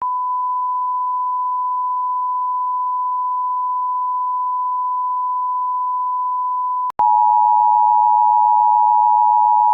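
A single steady electronic alert tone that is cut off about seven seconds in, followed at once by the louder two-tone Emergency Alert System attention signal.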